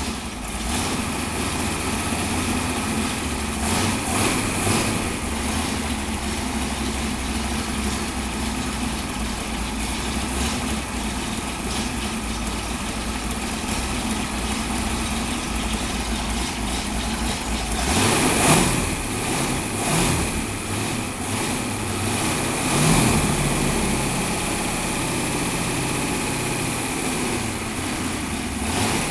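383 small-block Chevrolet V8 (a stroked 350) with a solid roller cam, being run for the first time, idling steadily. A few brief revs come about four seconds in and again several times in the second half.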